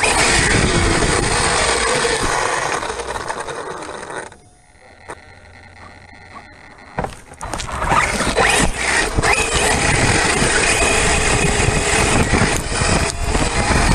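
Onboard sound of an Arrma Mojave 1/7-scale electric RC truck: a loud rush of wind and tyres tearing over grass, with the motor whining. About four seconds in the noise drops away for about three seconds while the truck lies tipped over in the grass, with a few small knocks. Then the rushing picks up again as it drives off.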